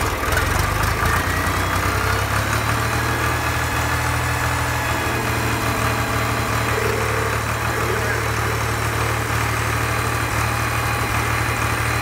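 John Deere 300B loader backhoe engine idling steadily, driving its freshly rebuilt radial hydraulic pump.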